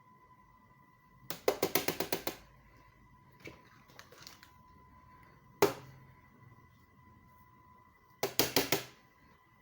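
Cartoon sound effects: two quick rattling runs of sharp clicks, one about a second in and one near the end, with a single sharp click in the middle, over a faint steady high tone.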